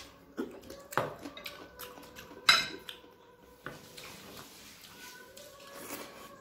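Two people eating rice with their hands from glass dishes: soft mixing and scraping of food with a few sharp clinks against the plates, the loudest about two and a half seconds in. A faint steady hum runs underneath.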